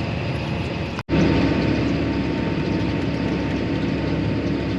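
A vehicle engine running steadily, broken by an edit cut about a second in, after which a steady engine drone with a constant hum carries on.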